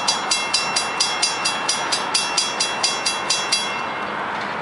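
Railroad grade-crossing warning bells ringing rapidly, about four strikes a second, while the crossing gates lower to warn of an approaching train. The ringing cuts off suddenly near the end, once the gate arms are down, leaving a steady background hiss.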